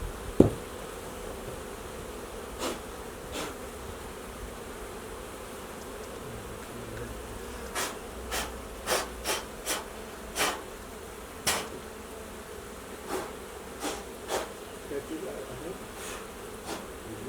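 Swarm of honeybees buzzing in a steady hum. A sharp thump about half a second in, and a run of sharp clicks or taps through the middle.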